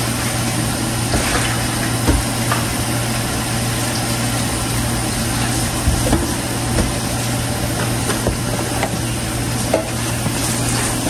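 A steady machine hum with a hiss under it, with a few faint light taps as sliced ginger and scallions are dropped by hand onto fish in a bowl.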